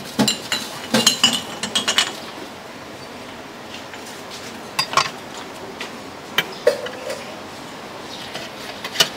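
Cleaver chopping grilled pork on a wooden chopping board: a quick run of sharp knocks in the first two seconds. A few scattered clinks and knocks follow.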